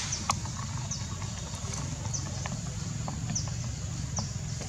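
Outdoor forest ambience: a steady low rumble under a high steady hiss, with a bird's short falling chirp repeating about once a second.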